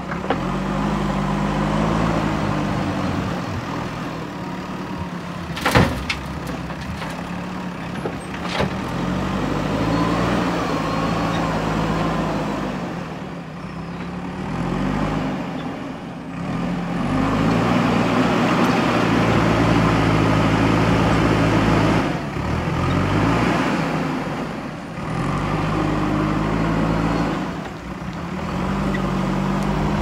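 JCB 3DX backhoe loader's diesel engine running and revving up and down as the loader bucket scoops and lifts gravel. A sharp knock comes about six seconds in and a lighter one a couple of seconds later.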